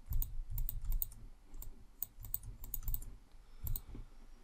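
Irregular clicking and tapping of a computer keyboard and mouse on a desk: a dozen or so quick clicks in small clusters, each with a low knock under it.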